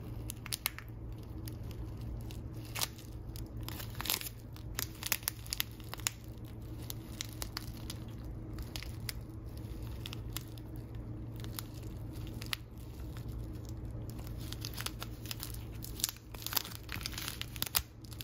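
Clear plastic zip-top bag of loose-leaf tea crinkling in the hands as it is turned and squeezed, in scattered sharp crackles over a steady low hum.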